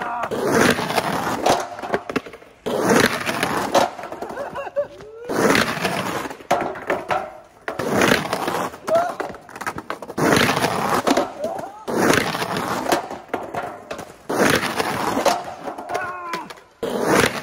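Skateboard run through repeated slappy grind attempts: wheels rolling on concrete, trucks scraping along the curbs, and the board clattering on landings and bails. The sound comes in loud stretches of a second or two, separated by abrupt breaks.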